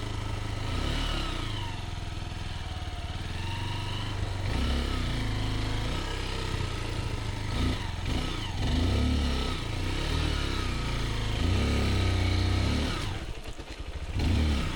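Motorbike engine being ridden over a rough road, revving up and down over and over as the throttle is worked, with a short drop when it is eased off near the end.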